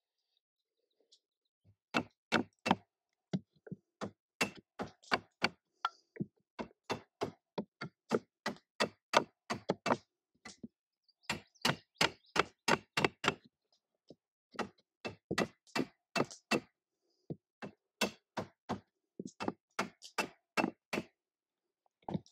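An axe head striking a wooden driving block, driving a bent wooden rib down into place inside a birch bark canoe. Sharp knocks, about three a second, come in runs broken by short pauses, starting about two seconds in.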